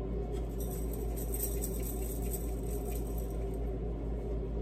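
Faint crinkling of a small plastic pepper packet being handled and worked open, over a steady low hum.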